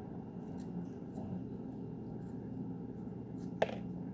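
Faint handling clicks as a folding knife picks at the inside of a pepper cap, with one sharper click about three and a half seconds in, over a steady low hum.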